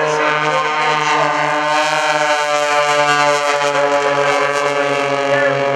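An MX-2 monoplane and a Wolf Pitts biplane flying together, their piston engines and propellers running steadily at an even pitch with a slow pulsing beat.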